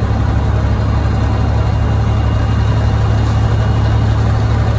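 Semi truck's diesel engine and road noise heard inside the cab while driving: a loud, steady low drone.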